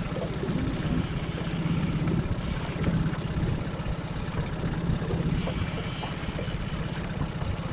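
A fishing boat's engine running steadily at low speed, a dense low rumble with fast even pulsing, with short spells of hissing water or wind over it.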